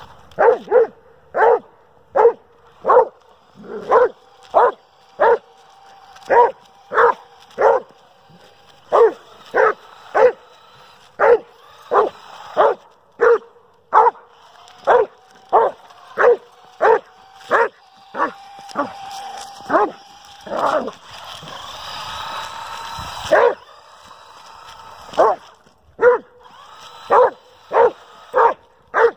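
Doberman Pinscher barking over and over at an RC car, about one bark every second or faster, with a short break about three quarters of the way through. Between barks at times comes the thin, steady whine of the RC car's electric motor.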